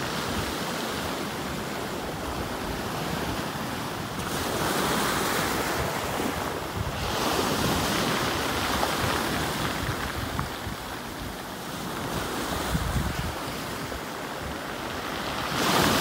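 Sea waves breaking and washing up a pebble beach, swelling and ebbing every few seconds, with a louder breaker near the end. Wind buffets the microphone.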